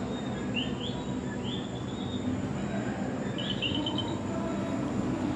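Common coquí frogs calling: short rising chirps, often in pairs, repeating every second or so. Under them is a steady low rumble and a faint high steady whine.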